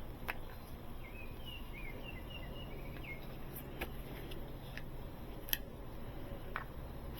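Quiet background with a few light clicks and taps from handling the jump pack and its accessories, and a short run of faint high chirps about a second in.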